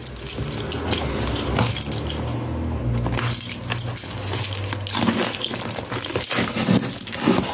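Plastic parcel packaging being handled and pulled open close to the microphone: continuous crackling and rustling with small clicks, and a low steady hum under the first half.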